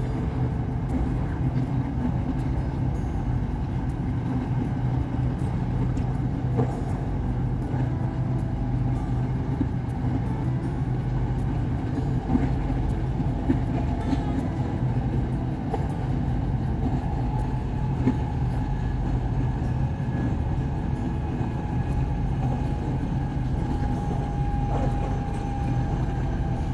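SRT Red Line electric commuter train running: a steady low rumble and hum. A thin whine comes in near the end, falling slightly in pitch.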